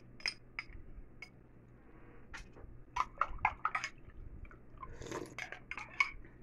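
A metal spoon stirring a drink in a drinking glass, clinking against the glass in a run of irregular sharp ticks.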